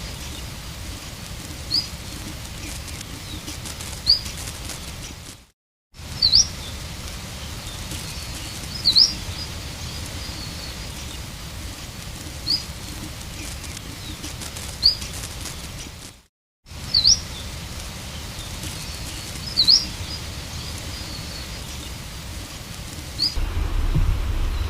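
Archival field recording of an extinct bird species: single short, sharp high chirps repeated every two to three seconds over a steady recording hiss, the recording breaking off into silence twice and restarting. Near the end a louder low rumble comes in.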